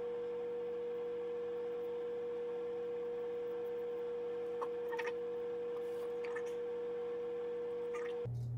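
A steady hum at one mid pitch. A few faint scrapes of a straight razor on neck stubble come about halfway through and again near the end.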